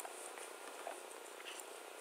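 A single computer mouse click right at the start, then a few faint ticks over a steady low room hiss.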